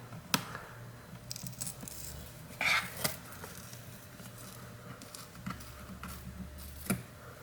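Occasional small clicks and taps of hands and tools on a laptop's plastic underside, with a brief scraping rustle about two and a half seconds in.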